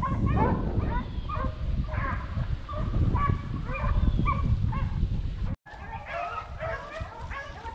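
A pack of rabbit beagles baying in the distance, many short yelping calls overlapping as they run a rabbit's trail, over low rustling from walking through dry brush and leaves. The sound cuts out for a moment about five and a half seconds in.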